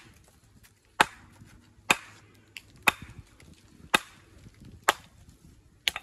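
Hammer striking walling stone in steady blows, about one a second, six sharp cracks in all, as a stone is knocked and shaped.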